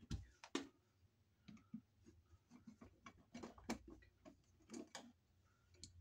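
Faint, irregular clicks and taps of a screwdriver and a pulled-out wall outlet being handled, the two sharpest near the start.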